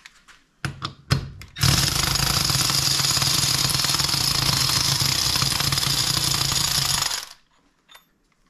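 A couple of short knocks, then a handheld power tool running steadily for about six seconds and cutting off sharply, spinning the Bridgeport vise's lead screw out.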